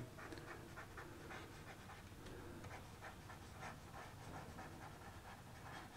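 Faint, irregular scratching of handwriting strokes from a stylus writing on a drawing tablet.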